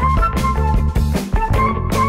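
Upbeat background music with plucked melody notes over a steady drum beat.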